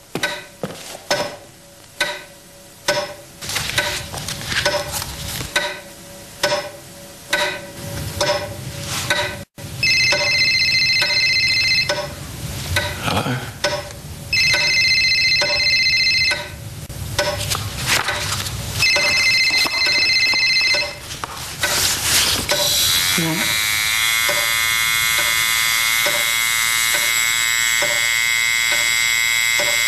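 Steady regular ticking about twice a second, then a phone ringing in three bursts of about two seconds each, followed by a continuous electronic buzzing tone.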